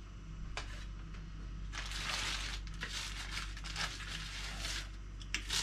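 Pizza wheel rolling through a baked pizza, the crust crunching in a series of cutting strokes, the longest about two seconds in, over a low steady hum.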